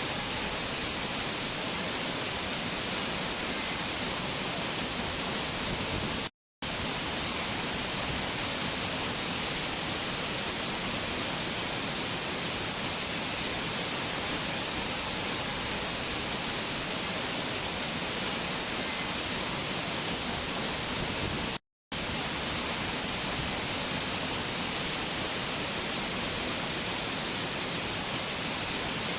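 Waterfall: a steady, even rush of falling water that cuts out to silence for a split second twice, about six seconds in and again about twenty-two seconds in.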